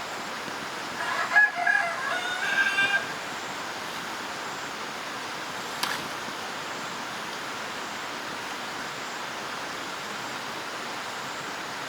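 A rooster crowing once, about a second in, a call of roughly two seconds over a steady background hiss. A single sharp click comes near the middle.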